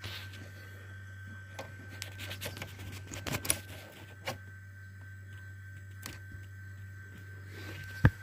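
Small clicks, scrapes and taps of a part being worked back into place inside a dishwasher with a screwdriver, busiest around three seconds in, with one sharp knock near the end that is the loudest sound. A steady low hum runs underneath.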